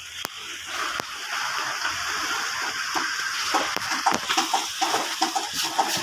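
Water running in a steady rush for a few seconds, then giving way to a few light knocks and clicks.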